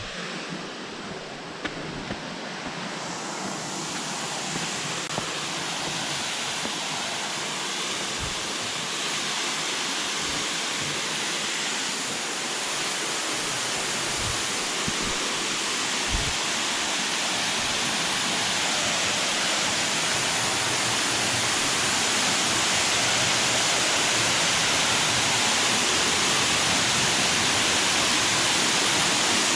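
A waterfall pouring through a rock formation, making a steady rushing noise that grows gradually louder as it is approached.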